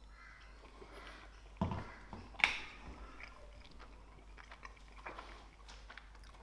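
A person chewing a mouthful of cheese topped with chunky pickle hot sauce, with a few short mouth sounds and a sharp click about two and a half seconds in.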